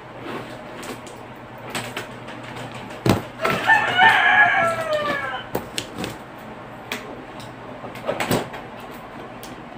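A rooster crows once, a call of about two seconds that falls in pitch at its end. Behind it are scattered clicks and rustles as packing tape is worked off a cardboard box.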